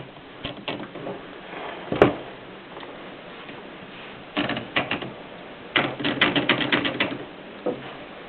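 Triumph Norm manual typewriter being typed on: single key strikes, a louder knock about two seconds in, then a quick run of about ten keystrokes near the end.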